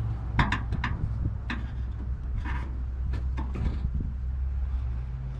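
Light metallic clicks and taps from handling a car's hood gas strut and its end fittings during removal, coming in small clusters, over a steady low hum.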